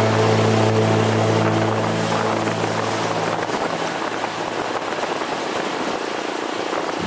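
Motorcycle riding past a bike-mounted camera's microphone: a steady engine drone with wind rushing over the mic. The drone fades out about halfway, leaving mostly wind and road noise.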